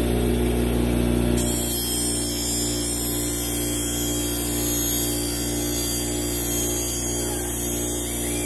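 Electric bench grinder motor running steadily with a steady hum, and from about a second and a half in the steel edge of a machete pressed against its spinning wheel, adding a steady high grinding hiss as the edge is cleaned up and polished.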